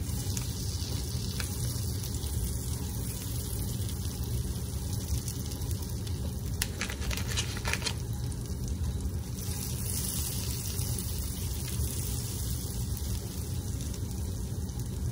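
Butter sizzling steadily as it melts and foams in a nonstick skillet, pushed around now and then with a wooden spatula.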